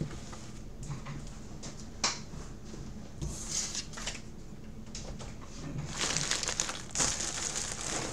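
Plastic packaging crinkling and rustling as a jersey is folded and slid between black bubble mailers and a clear poly bag, with a few sharp taps; the crinkling grows denser near the end.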